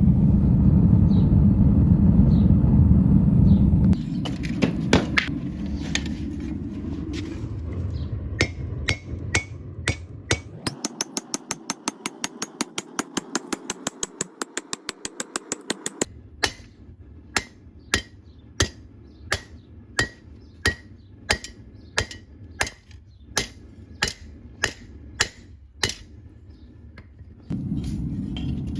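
Hammer blows on a lawn mower blade's steel being forged on an anvil: a few scattered blows, then a quick run of several light blows a second, then steady blows about one and a half a second. A steady low rumble opens and closes the stretch.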